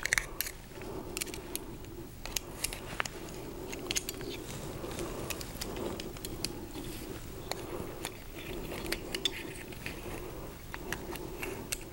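Light, irregular metallic clicks and scrapes of a pick working the O-ring off the stainless-steel drive shaft behind the rotor of a Unibloc PD positive displacement pump.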